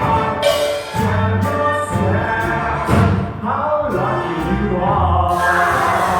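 Music with voices singing over instrumental accompaniment, with low held bass notes underneath.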